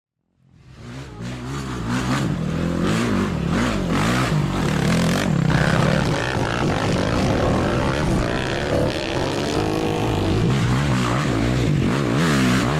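Quad bike (ATV) engine running and revving up and down repeatedly, fading in over the first couple of seconds.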